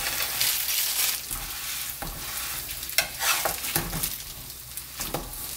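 Hotteok frying in oil in a nonstick pan, a steady sizzle, with a few short scrapes and taps of a slotted spatula pressing the pancakes flat.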